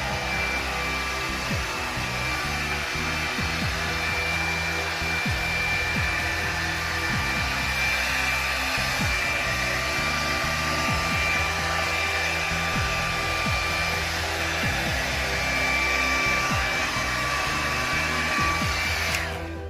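Hair dryer blowing steadily during a blow-dry, a rush of air with a faint high whine, switching off abruptly just before the end.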